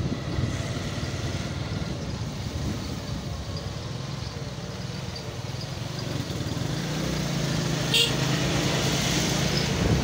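Road vehicle driving along a paved road: steady engine hum and tyre noise, growing louder over the last few seconds. A single sharp click about eight seconds in.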